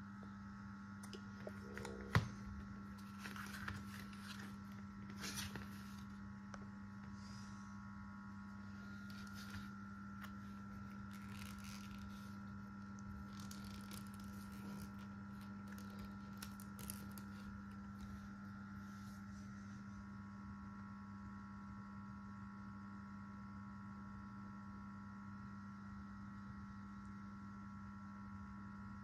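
Steady electrical hum, with soft rustling and clicking of cardboard packaging being opened and handled over the first twenty seconds or so, including one sharp click about two seconds in.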